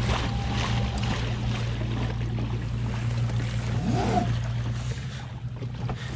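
Water washing along the hull of a kayak under way, over a steady low hum.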